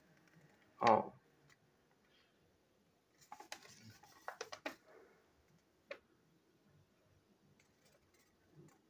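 Handling of the toy's paper instruction leaflet and packaging: a brief pitched sound about a second in, then a cluster of small clicks and rustles a few seconds in, and one sharp click near six seconds.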